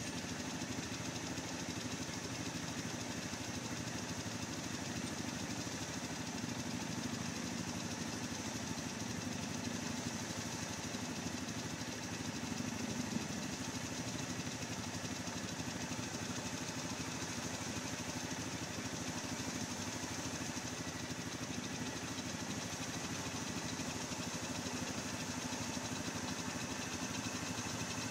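Yamaha Grizzly 700 ATV's single-cylinder engine running steadily, swelling briefly about halfway through.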